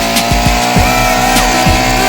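Background electronic dance music with a steady beat and sliding synth tones.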